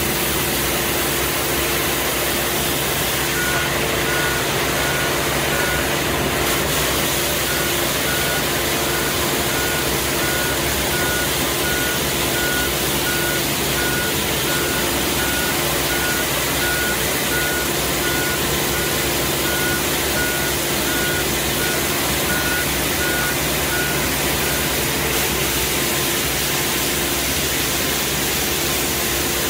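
Compact street sweeper running with a steady engine and hydraulic drone, its side rotary brush scrubbing along a kerb and paving. From a few seconds in until near the end, an electronic warning beeper sounds about one and a half times a second, with a short break early on.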